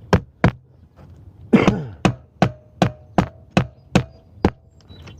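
Hammer tapping deck screws through copper sheet to set them: two sharp blows, then after a brief clatter an even run of about seven blows, roughly two and a half a second, with a faint metallic ring under the later strikes.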